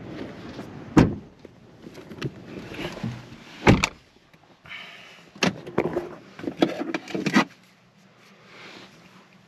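Handling noises inside a car: two heavy thuds about one and nearly four seconds in, then a quick run of knocks and clatter. The thuds fit the car's door or door panel being handled.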